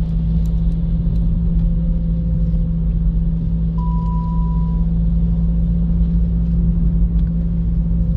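Steady low rumble of a car driving, heard from inside the cabin: engine hum and tyre noise on a snow-covered road. A single short high beep sounds about four seconds in.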